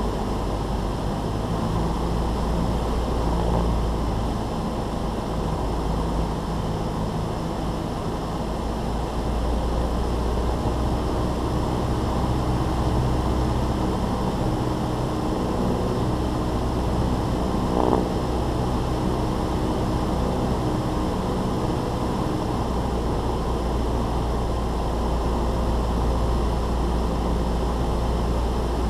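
Cessna 172's piston engine and propeller droning steadily on approach to land, with one short click about two-thirds of the way through.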